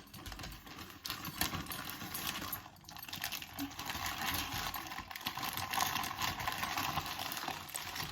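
Rustling and crinkling of packaging being handled and torn open, with irregular clicks and crackles throughout.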